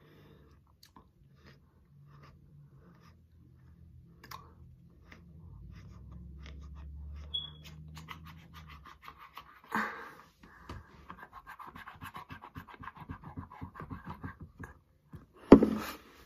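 Wet mouth sounds of a tongue licking and sucking on the roll-on ball of a liquid candy bottle: scattered clicks at first, then a quick run of small smacks from about ten seconds in, with a louder mouth sound near the end.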